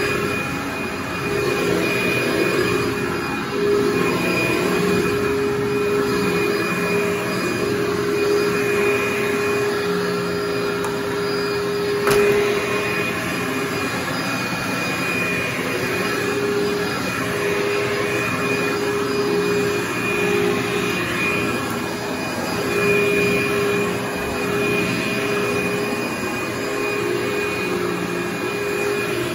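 Commercial upright vacuum cleaner running over carpet, its motor giving a steady whine that wavers slightly as it is pushed back and forth.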